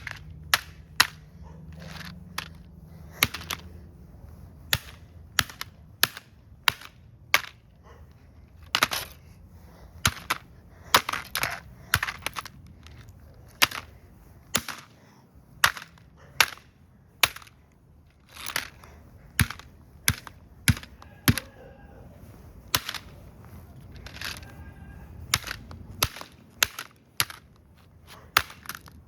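Hammer striking a plastic toy remote-control car again and again: dozens of sharp cracking blows at an uneven pace, roughly one to two a second.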